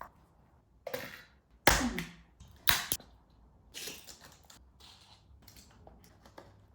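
High-heeled sandals stomping on toy cars: three sharp cracks and clacks about a second apart, then a softer knock near four seconds.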